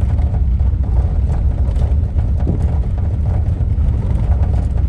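Wind buffeting the microphone: a heavy, steady low rumble.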